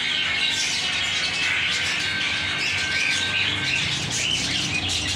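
Many small birds chirping and chattering continuously over one another, over a faint steady low hum.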